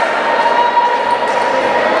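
A large crowd of spectators shouting and cheering steadily in a sports hall, with the sepak takraw ball being kicked once or twice.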